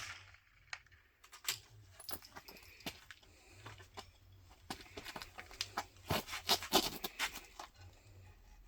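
A scatter of small clicks, rattles and knocks from a .22 rimfire rifle and its gear being handled between shots, busiest near the end. No shot is fired.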